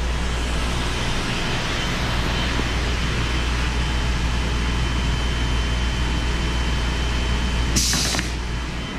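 Shop dust collection system and a CNC router's vacuum hold-down pump running together: a steady rushing noise over a low hum. A brief hiss cuts in about eight seconds in.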